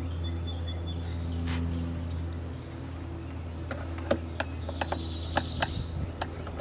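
A string of sharp, irregular clicks and taps from small hand tools and trim parts as a car door is put back together, starting a little past halfway, over a steady low hum. Faint bird chirps come and go above.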